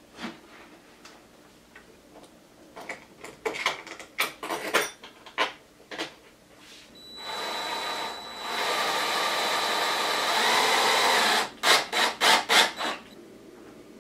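Knocks and clatter of a metal amp chassis being fitted into its wooden cabinet. Then a cordless drill/driver drives the chassis mounting screws: it runs steadily for a few seconds, then gives several short trigger bursts near the end.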